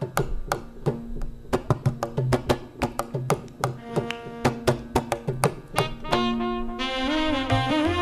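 Indian classical-style music: quick, dense percussion strokes over a steady drone, then about six seconds in a sustained melodic line with gliding pitch bends takes over.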